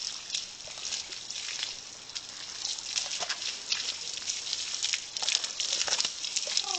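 Water from a garden hose spattering on a horse's legs and the puddled ground: an uneven, crackling hiss.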